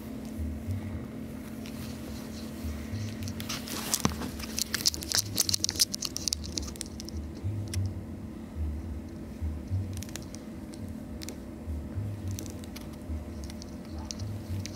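Kittens moving about and playing: soft rustling with scattered crackles and clicks, thickest about four to six seconds in, over a steady low hum.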